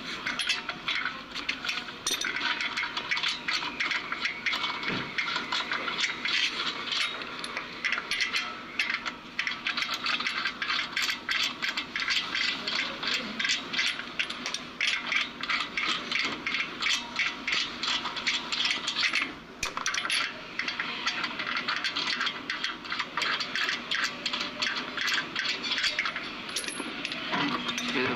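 A car jack being worked to raise the car: rapid, continuous metallic clicking and rattling, with a brief pause about 19 seconds in.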